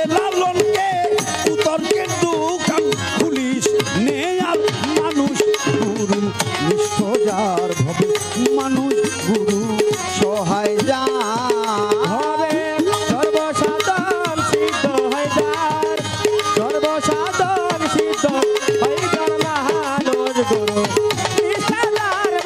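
Live Bangladeshi pala gan folk music: a bamboo flute and voices singing over a steady drone and a busy hand-drum rhythm.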